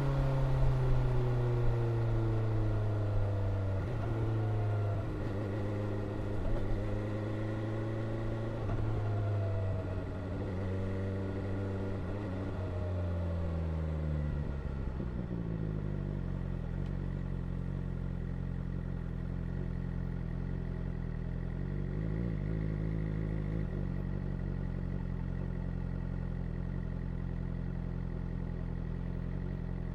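2022 BMW S1000R's inline-four engine decelerating, its pitch falling with several sudden upward steps as it is shifted down. About fifteen seconds in it settles into a steady idle.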